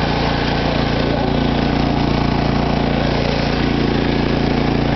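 Ride-on lawn mower's engine running steadily under load as it climbs a steep hill, an even low drone with no change in pitch.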